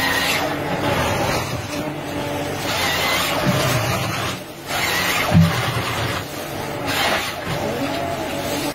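Forestry harvester at work: its engine and hydraulics run under load while the harvester head's chain saw cuts through logs in several bursts of rasping saw noise, about one every two seconds.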